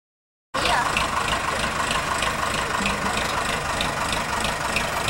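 Aircraft tow tractor engine running steadily, starting abruptly about half a second in, with onlookers' voices mixed in.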